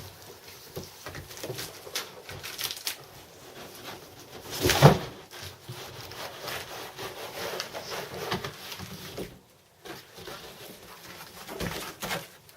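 Cardboard box and packing scraping and rustling as a full tower PC case is pulled out of its box, with many small knocks and one loud scrape or thump about five seconds in.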